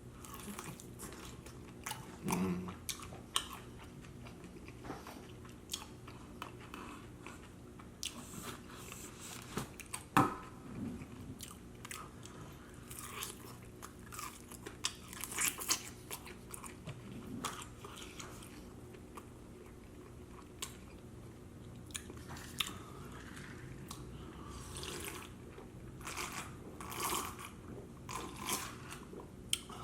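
Close-up eating sounds: chewing and open-mouthed smacking on Wingstop chicken wings and fries, with wet clicks and crunches at irregular intervals. One sharper click stands out about ten seconds in.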